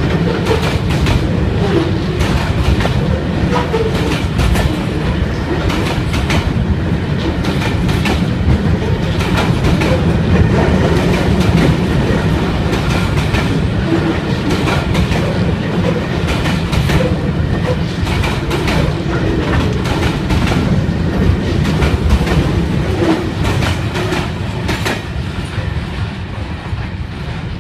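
Container freight train's wagons rolling past close by, the wheels clattering rhythmically over the rail joints. The sound eases off near the end as the brake van at the tail goes by.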